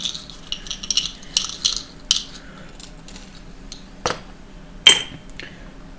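Light clatter of small hard objects on a tabletop as crafting supplies are handled: a loose rattle of wooden toothpicks being tipped out, then two sharp clicks about four and five seconds in, the second ringing briefly.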